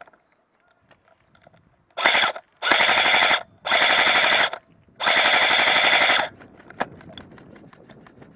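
Airsoft gun firing loudly on full auto in four bursts of rapid shots, the last and longest lasting over a second, followed by a single sharp click.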